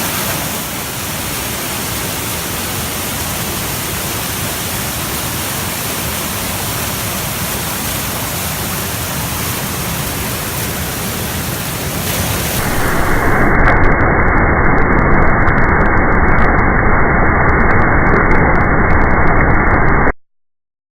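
Waterfall: a steady rush of falling water. About two-thirds of the way through it turns louder and duller, then cuts off abruptly to silence near the end.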